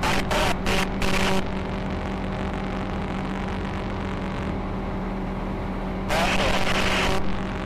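Ultralight aircraft engine and propeller droning steadily in cruise-climb, heard through the cockpit intercom. Several short bursts of hiss come near the start, and another lasts about a second, starting about six seconds in.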